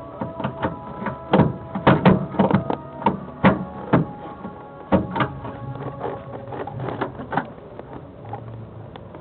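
A run of irregular sharp clicks and knocks, loudest and closest together in the first four seconds and thinning out later, over faint steady tones.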